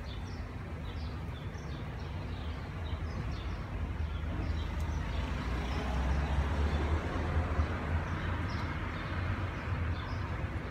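Outdoor street ambience: a steady low traffic rumble that swells in the middle as a vehicle passes, with small birds chirping faintly throughout.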